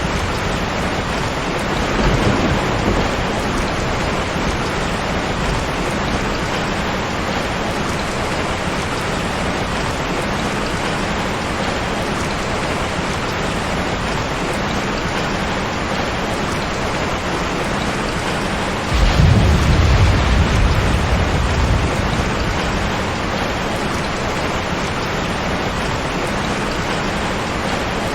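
Steady heavy rain, with a rumble of thunder about two-thirds of the way through and a fainter one near the start.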